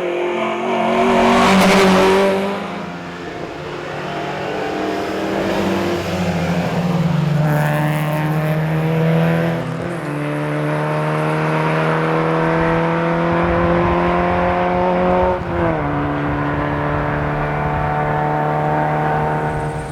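Volvo 122S rally car's four-cylinder engine accelerating hard, its pitch rising steadily and dropping at gear changes about ten and fifteen and a half seconds in. A loud rush of noise swells and fades in the first couple of seconds.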